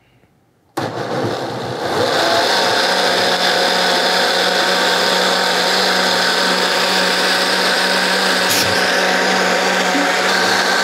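Countertop blender switching on under a second in and running at a steady speed with a constant motor hum, puréeing hot roasted-tomato soup with cream.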